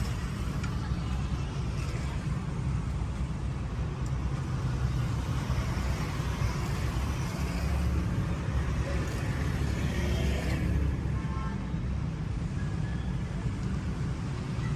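Steady street traffic noise: a constant low rumble of passing vehicles with a hiss of road noise above it.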